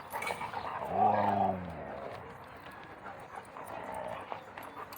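A dog gives one drawn-out vocal call about a second in, sliding slightly down in pitch, over the quiet background of an outdoor dog park.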